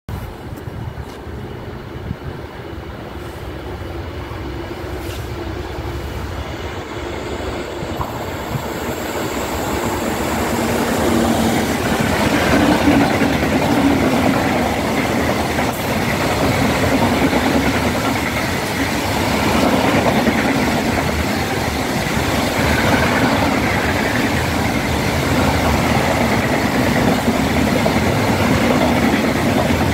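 Freight train of bottom-discharge hopper wagons approaching and passing. Its wheels rumble on the rails, with a few sharp clicks at first. The noise grows over the first dozen seconds, then stays loud as the wagons roll by.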